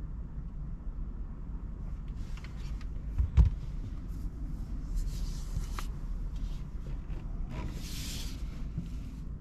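Steady low road and tyre rumble from a BMW iX3 electric SUV driving, with one sharp thump about three and a half seconds in and a few stretches of hiss later on.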